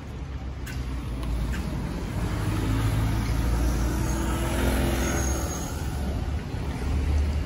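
A motor vehicle passing close by on a street, engine and tyre noise swelling to its loudest about halfway through, then easing off, over a steady low traffic rumble.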